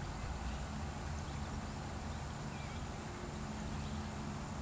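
Steady outdoor background on a golf course: a constant low rumble, with a faint short chirp from a bird about two and a half seconds in.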